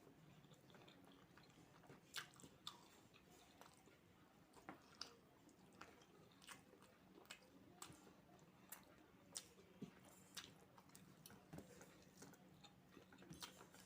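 Faint, close-up chewing of a person eating fried rice and chicken curry, with irregular small wet mouth clicks.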